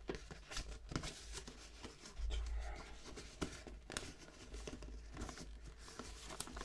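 Faint rustling and scattered small clicks and scrapes of cardboard and plastic packaging being handled, as a toy figure that is stuck in its box is worked loose.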